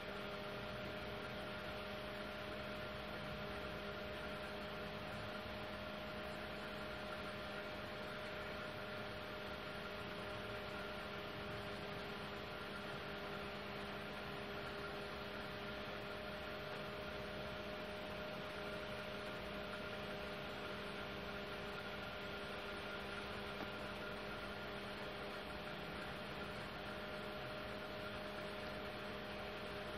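Steady electrical hum with a few fixed tones over a faint hiss, unchanging throughout.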